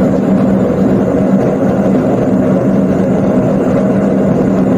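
Whirlpool front-load washing machine spinning with a loud, steady noise from inside the machine: a constant hum under a dense mechanical rumble. The technician traces the noise to a broken drum spider (support arm).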